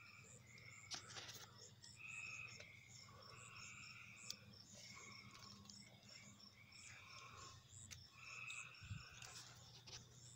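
Faint evening chorus of calling frogs: long calls repeated every second or two, with quicker, higher chirps among them, over a low steady hum.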